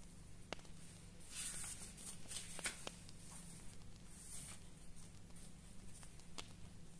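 Paper cross-stitch chart pages rustling as they are lifted and turned, in two brief bursts, with a few light taps and clicks from handling on the table. A steady low hum runs underneath.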